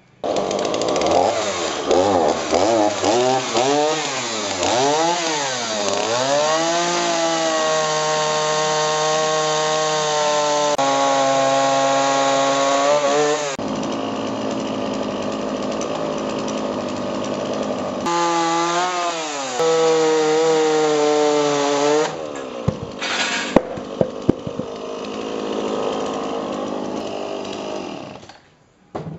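Chainsaw blipped up and down in pitch several times, then held at high speed while cutting into a hinoki log, the sound breaking off and resuming abruptly a few times. Near the end the engine is rougher, with a few sharp knocks.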